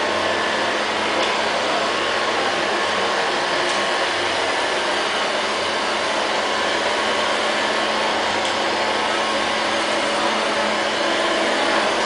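LL-302 robot vacuum cleaner running as it drives across a tiled floor: a steady whirring hum and hiss from its suction motor.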